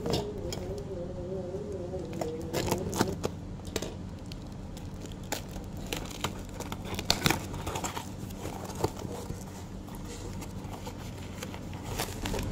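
A cardboard box being opened by hand: flaps pulled and torn with irregular sharp clicks and rustles, then clear plastic wrapping crinkling near the end.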